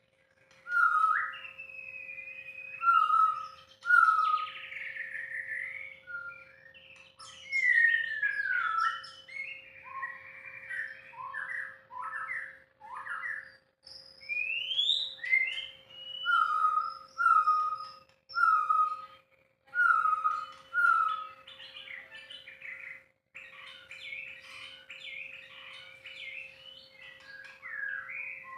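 White-rumped shama singing a varied song of whistled phrases, glides and quick notes, with a run of short repeated notes about halfway through. A faint steady hum lies underneath.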